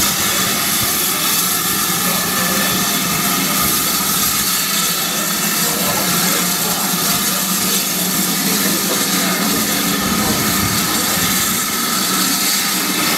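Steady hiss of steam from a GWR 2-6-2 Prairie tank steam locomotive as it moves slowly away.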